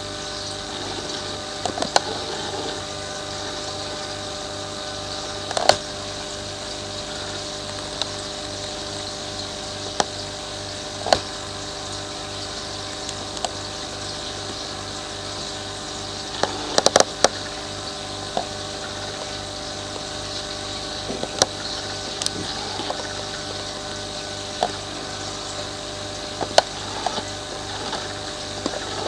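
A steady hum made of several even tones over a hiss, with sharp clicks and knocks every few seconds and a quick cluster of them a little past the middle.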